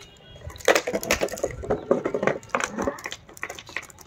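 German Shepherd chewing and mouthing a plastic bottle on concrete: irregular crackling crunches of the plastic, starting a little under a second in.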